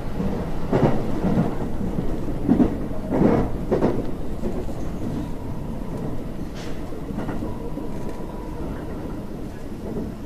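Local train running along the track, heard from inside the carriage: a steady rumble with several knocks of the wheels over rail joints in the first four seconds, then a smoother run.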